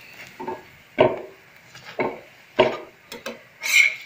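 A metal spatula knocking against a tawa (flat griddle) while a paratha cooks: about five separate knocks, spaced roughly half a second to a second apart. One near the end has a brief metallic ring.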